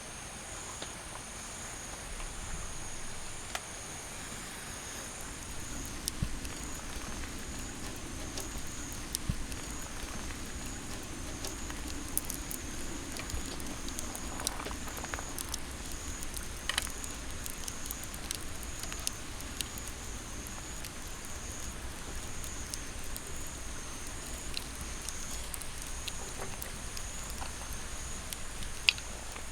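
Steady rushing of a mountain valley stream, with scattered light ticks and clicks and a thin, high pulsing tone running through it.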